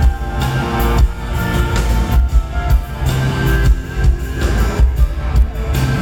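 Live rock band playing: acoustic guitar strumming over drum kit and bass, with a male lead vocal.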